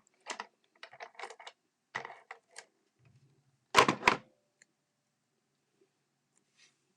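Cardstock pieces being handled and pressed onto a card: a series of light paper rustles and taps, then two louder knocks close together about four seconds in.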